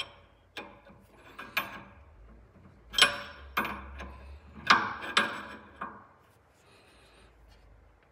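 Steel combination wrenches clicking and scraping on the nut of a Racingline adjustable front sway bar end link as it is tightened, with one wrench holding and the other turning. Sharp metallic clicks come about every half second, loudest around three and five seconds in, and thin out after about six seconds.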